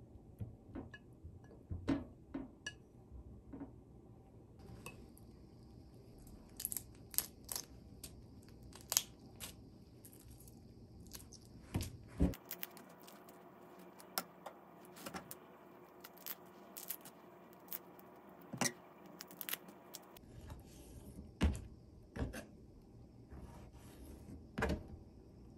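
Quiet kitchen handling sounds: light clicks and taps of chopsticks setting okra on a ceramic plate, then small crackles and taps as raw shrimp are peeled and deveined with a knife on a plastic cutting board.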